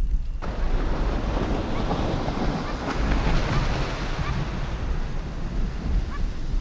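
Ocean surf breaking and washing over a rocky shore, with wind rumbling on the microphone. The surf noise comes in suddenly about half a second in.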